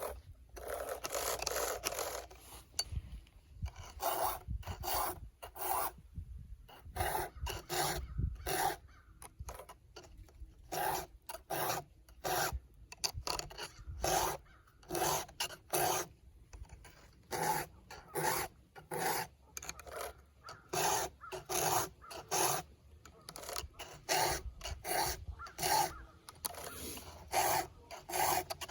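A hand file stroking across the cutters of a chainsaw chain, about two strokes a second, with a few brief pauses.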